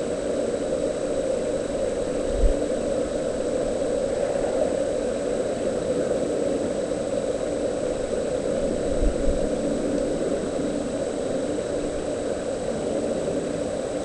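A steady hum with a thin, high-pitched whine over it, from a nest camera's audio feed, broken by two soft low thumps about two seconds in and near nine seconds.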